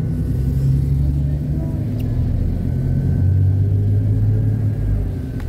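Bus engine and road rumble heard inside the cabin, a steady low drone whose pitch drops a little about halfway through.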